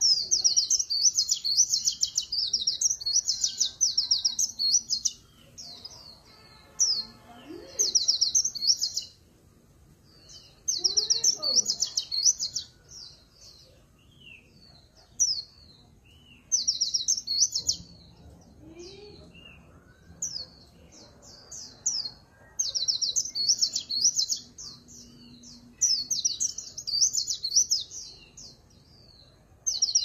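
Caged white-eye singing in repeated bursts of rapid, very high twittering, each burst lasting one to four seconds with short pauses between. This is the 'líu pha chòe' song style valued by Vietnamese keepers.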